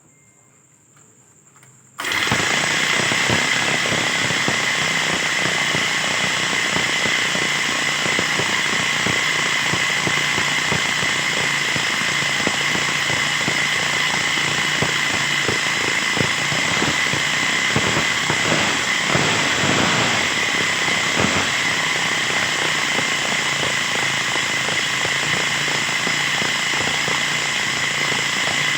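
Overhauled lawn mower's small petrol engine catching suddenly about two seconds in, then running loud and steady.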